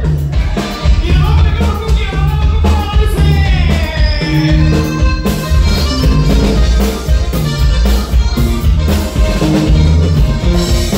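A live Mexican regional band playing dance music, with a button accordion over a strong, steady bass line and beat.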